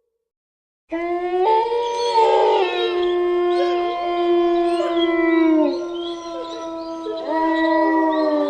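A pack of wolves howling in chorus: several long howls at different pitches overlap, some sliding down at their ends. It starts suddenly about a second in, and a new rising howl joins near the end.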